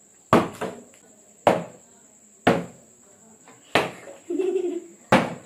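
Partly filled plastic bottles being flipped and landing on a tabletop: five sharp knocks about a second apart. A steady high-pitched tone runs underneath.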